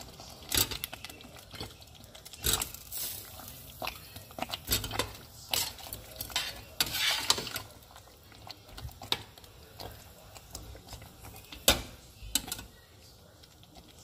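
A cooking utensil knocking and scraping against a pot in irregular strokes as chicken is stirred into the sauce, with the sharpest knock late on.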